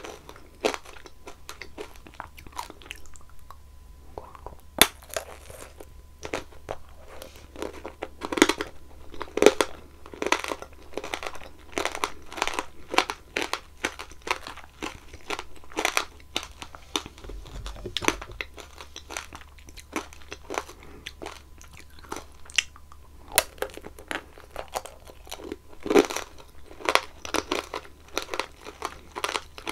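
Close-miked biting and chewing of strawberry tanghulu: the hard sugar-candy shell cracks and crunches between the teeth in a dense run of irregular sharp crunches, with a few louder bites standing out.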